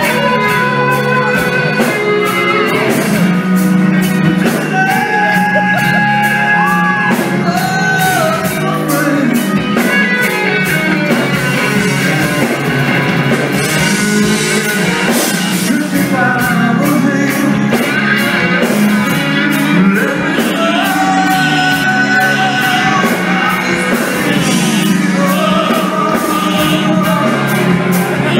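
Live rock band playing: electric guitars with held and bending lead notes over drums, loud and steady, with little deep bass.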